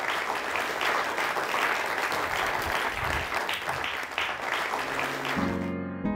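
Audience applauding, cut off suddenly near the end as music comes in.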